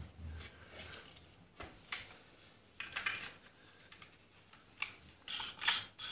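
Wooden replica rifle being handled: scattered clicks and knocks of wood against wood, with a quick run of sharper clicks near the end as the action is fingered.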